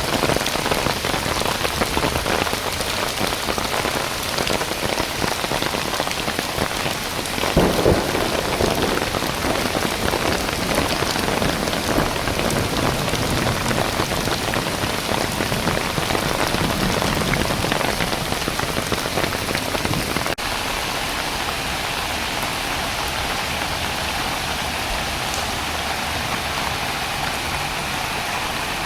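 Steady hiss of heavy rain together with rushing floodwater in a brook in spate, briefly louder about eight seconds in. About twenty seconds in the sound changes abruptly to a steadier, thinner rush.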